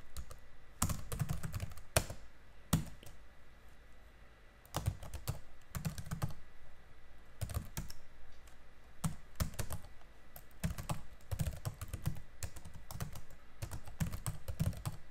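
Computer keyboard typing in bursts of quick keystrokes, with a short pause a few seconds in before steady typing resumes.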